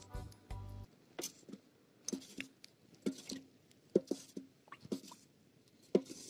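Stick stirring and beating silt in water in an enamel bucket: irregular small splashes and knocks, a couple every second. It is churning river mud to wash bloodworm larvae out so they float up.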